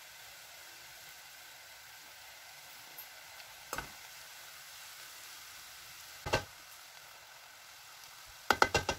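A pan of chicken and vegetables sizzling steadily over low heat as parboiled rice is spooned onto it. A slotted spoon knocks against the pan twice, then taps it four or five times in quick succession near the end.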